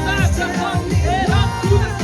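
Background music with a steady bass beat and a gliding melody line.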